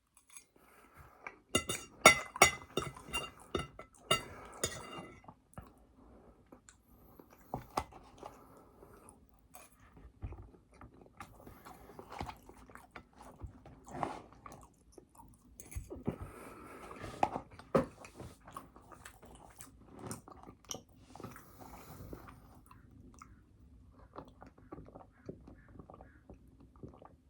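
Close-miked chewing and biting of food, with crunching. The clicks and crackles are densest and loudest about two to five seconds in, then go on more sparsely.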